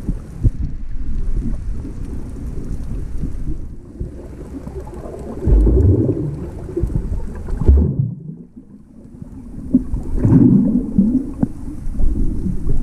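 Muffled underwater rumbling and churning of water against an action camera's waterproof housing, with bubbling from swimmers' kicks. It swells louder twice, about halfway through and again near the end.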